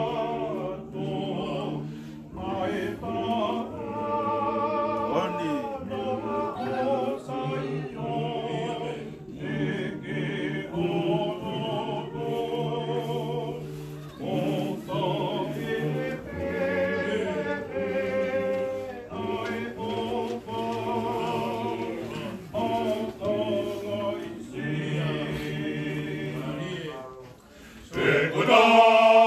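Tongan church choir of men and women singing a hymn together, holding long notes in phrases with short breaks between them. Near the end the singing drops off briefly, then comes back louder.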